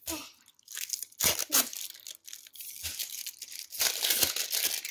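Plastic toy packaging crinkling and tearing as an L.O.L. Surprise ball is pulled open by its pull tab. A few scattered crackles at first, then a busier stretch of crinkling near the end.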